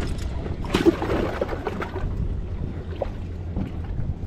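Steady low wind rumble on the microphone, with a short, sharp clatter about a second in and a few faint knocks after it.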